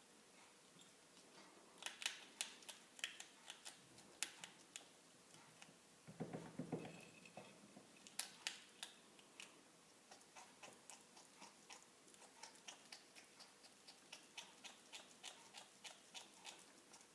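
Ferret eating: sharp crunching clicks, irregular at first and then about two a second, with a short, lower grating sound about six seconds in. This is the noise the owner wonders may be teeth grinding, a possible sign of abdominal pain.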